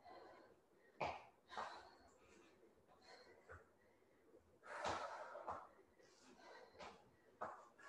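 A woman breathing hard from the exertion of weighted lunges: several short, faint exhalations with quiet gaps between.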